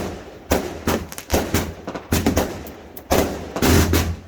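Fireworks going off: a string of sharp bangs about two a second, with a louder, denser burst near the end.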